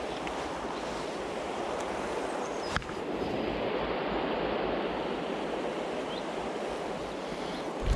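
Shallow river water rushing steadily over a stony bed, with one brief click a little under three seconds in.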